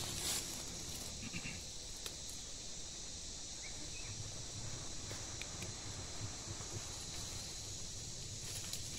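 Steady high chirring of insects in the scrub, with a faint low rumble and a few light rustles of brush.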